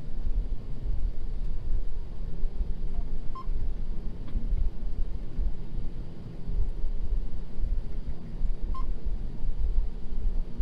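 John Deere T670i combine harvester running and rumbling steadily while driving down a steep slope, with two short electronic beeps about five seconds apart.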